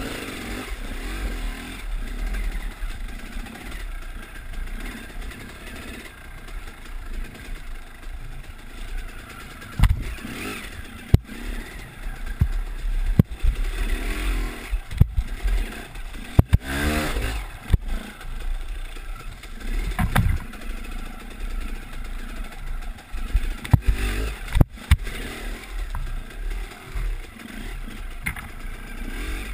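Dirt bike engine running and revving under throttle on a muddy trail, its pitch swinging up and down near the middle. A string of sharp knocks and clatter comes from the bike jolting over rough ground.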